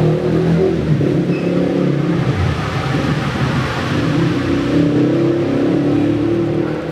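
A motor engine running, its pitch stepping up and down every second or so.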